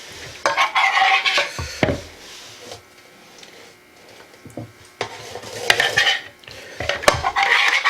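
Metal utensil clinking and scraping against dishes, in several bursts of clatter with a few sharp knocks.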